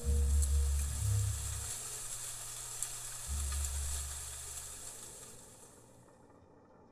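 Crackling hiss of old-film surface noise, with a deep low rumble that swells twice. It all fades out over the last couple of seconds.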